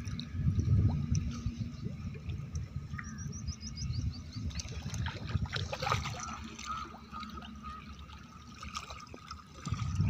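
Pond water sloshing and splashing as desi magur (walking catfish) swirl and break the surface, over a steady low rumble on the microphone. A bird gives a quick run of high chirps about three seconds in.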